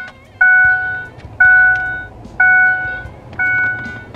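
2006 Ford F-150's dashboard warning chime sounding about once a second, each ding fading away before the next, with the ignition switched on and the engine not running.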